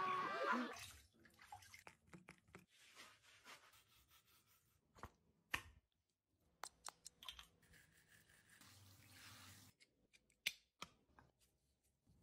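Faint wet sounds of a dog's coat being lathered with shampoo in a tiled shower, with drips and scattered sharp clicks.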